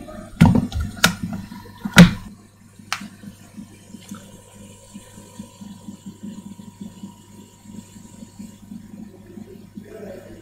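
Sharp clicks and knocks of soldering tools being handled at an electronics repair bench, the loudest about two seconds in, while excess solder is wicked off a circuit board with copper braid. After that comes a faint, quick, even ticking over a steady low hum.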